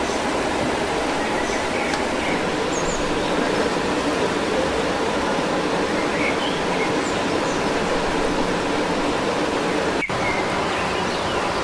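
Steady rushing background noise, with a few faint short chirps here and there.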